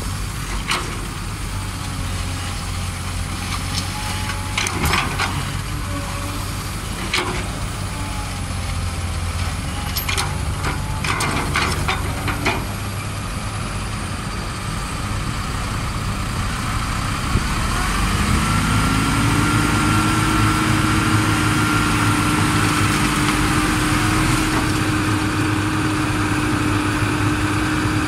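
Diesel engines running at idle, with several sharp clanks in the first half. About 17 seconds in the engine speeds up and a steady whine comes in as the Mitsubishi Colt Diesel dump truck's hydraulic hoist raises the bed to tip its load of earth.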